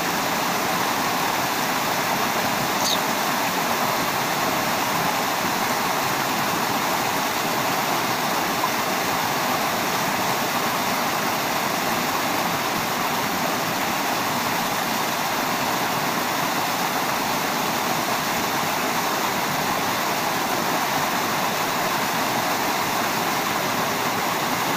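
Small waterfall pouring over a rock ledge into a shallow pool: a steady rush of falling water.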